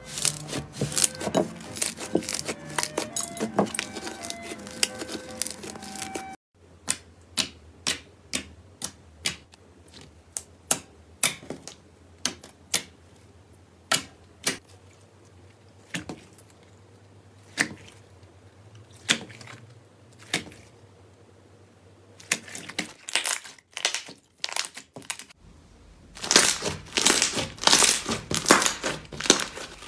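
Slime being squeezed and pressed by hand. First a red slime crackles densely. Then a clear slime gives single sharp clicks and pops about once a second. Near the end a white fluffy slime crinkles and crackles densely.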